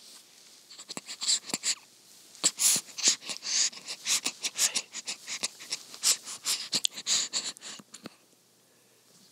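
Newborn baby's mouth and breathing noises, close to the microphone: a quick, irregular run of short smacks and breathy sounds that stops about a second before the end.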